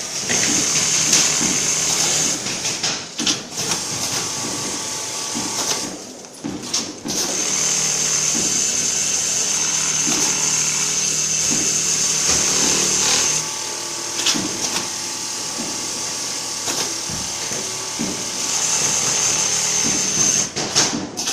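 Automatic pattern sewing machine running and stitching in runs, a high steady whine while it sews, with short clicks in the pauses between runs.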